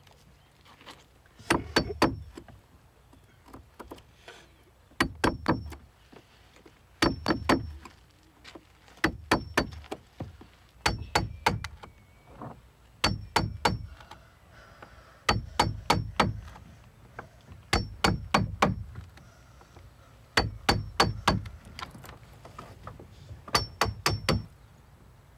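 Hammer blows ringing on a metal caulking iron, driving it into the seams of a wooden boat hull. The blows come in quick runs of three to five, a run about every two seconds.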